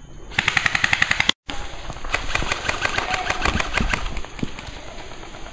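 Airsoft guns firing rapid full-auto bursts, about ten shots a second. The sound cuts out completely for a moment just after a second in, then firing resumes and dies away about four seconds in.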